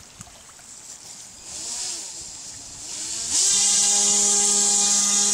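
Homemade RC airboat's battery-powered electric motor and propeller: two short throttle blips that rise and fall in pitch, then a spin-up about three seconds in to a loud, steady high whine with a hiss.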